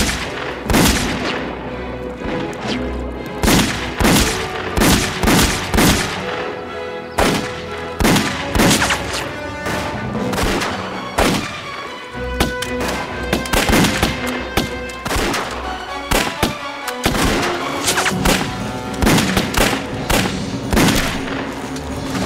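Repeated pistol shots, a dozen or more at irregular intervals, fired at the water, over dramatic background music.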